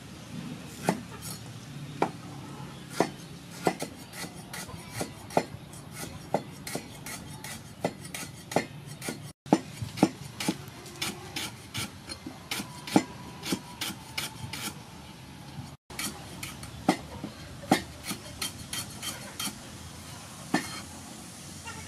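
Cleaver slicing lemongrass stalks on a round wooden chopping block: a steady run of sharp knocks, about two or three a second.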